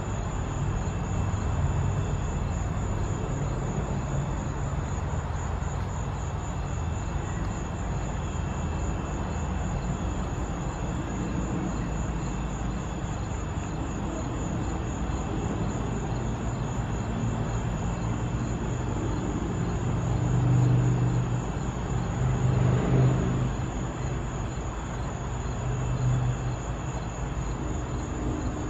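Backyard ambience: a steady low rumble that swells louder about twenty seconds in and again a little later, over a high, steady, evenly pulsing insect trill.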